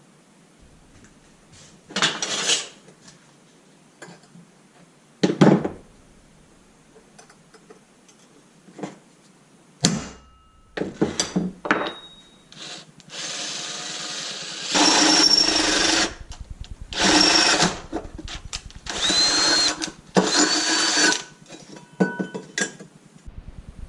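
A handheld power tool run in a string of short bursts, about a second each, after scattered knocks and clinks of hand tools.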